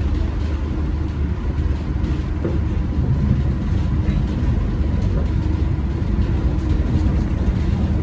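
MBTA subway train running, heard from inside the driver's cab as a steady low rumble with a faint steady whine over it.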